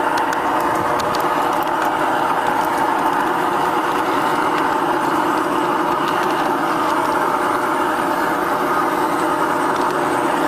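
G-scale garden train running along the track, its electric motor and gearing whirring steadily with the wheels rolling on the rails, with a few light clicks in the first few seconds.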